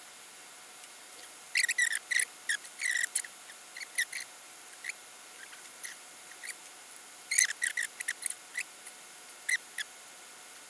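Irregular light metallic clicks and clinks of fuel-line fittings being handled and fitted onto the diesel injectors of a BMW N57D30 engine. A flurry comes about a second and a half in, another about seven seconds in, with scattered single ticks between.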